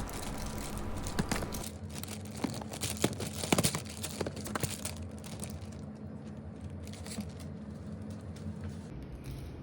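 Rubber-band ornithopter toy being handled and wound up, its thin plastic-film wings crinkling with irregular clicks and crackles that thin out about halfway through.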